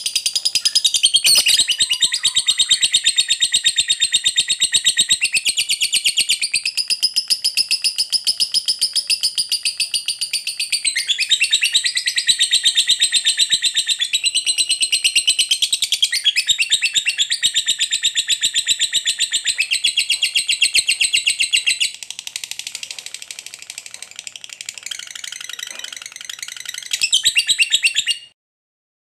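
Lovebird singing a long, unbroken ngekek: a rapid, high-pitched chattering trill that goes on without a pause, softer for a few seconds near the end, then loud again before it stops suddenly. This long ngekek is the song that hobbyists prize in a 'fighter' lovebird.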